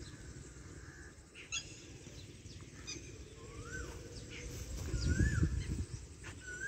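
Birds calling: a whistled note that rises and falls, repeated a few times, with short higher chirps between. A low rumble swells briefly about five seconds in.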